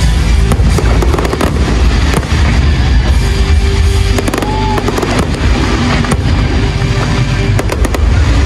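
Large aerial fireworks display: dense, near-continuous booms and bangs with crackling, over music.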